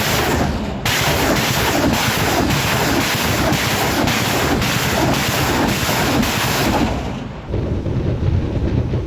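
BM-21 Grad multiple rocket launcher firing a salvo: a continuous roar of rockets leaving the tubes, a fresh launch about twice a second. It stops about seven seconds in, leaving a low rumble and wind on the microphone.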